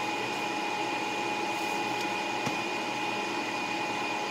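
Steady whirring hum of a motor-driven fan or appliance, with a faint click about two and a half seconds in.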